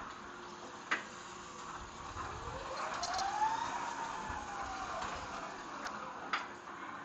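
Electric motor whine of a 36-volt Crown stand-up forklift, rising in pitch then falling away over about three seconds as the truck or its hydraulics are run. A sharp click about a second in and another near the end.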